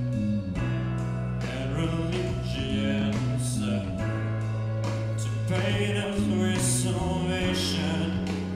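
A teenage boy sings a song into a microphone over instrumental accompaniment with held bass notes.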